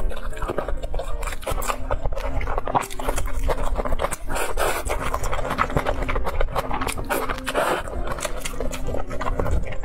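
Close-miked mukbang eating sounds: wet chewing and many small mouth clicks, with a slurp of spicy noodles around the middle.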